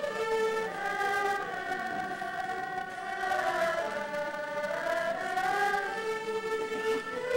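An erhu ensemble playing a slow melody, long bowed notes that slide smoothly from pitch to pitch, with a voice-like tone.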